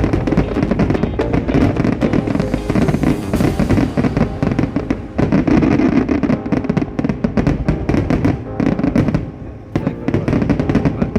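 Fireworks going off in a rapid, dense barrage of bangs and crackles, with music playing along, easing briefly about nine seconds in.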